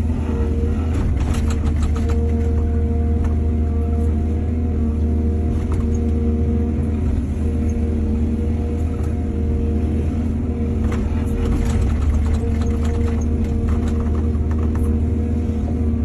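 Excavator's diesel engine running steadily under load, with two spells of clattering knocks, about a second in and again around eleven seconds in.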